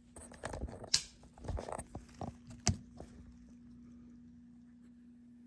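A brush working conditioning oil into an old leather jacket: a few seconds of irregular scrubbing and tapping strokes, with sharper knocks at about one second and near three seconds, then they stop. A steady low hum runs underneath.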